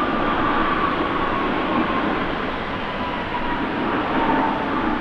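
Boeing 777-300ER's GE90 jet engines during the landing rollout: a steady roar with a high whine that slowly falls in pitch.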